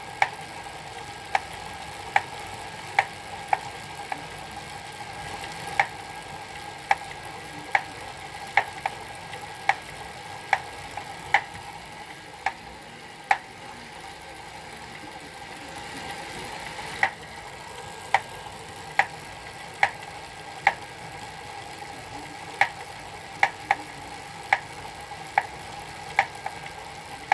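Elite Suito direct-drive smart bike trainer running with a steady whine. Sharp knocks come at uneven intervals, about one a second, and pause for a few seconds about halfway through: an abnormal knocking from the trainer.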